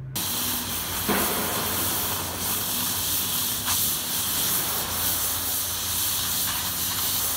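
Gas cutting torch hissing steadily as it burns through steel, with two brief sharper crackles, about a second in and near the middle.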